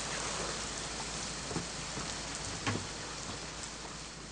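Steady rain falling, an even hiss, with two faint knocks in its middle.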